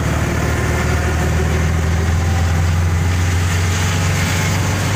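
Auto-rickshaw engine running steadily on the move, heard from inside the open cabin as a loud, low, even drone.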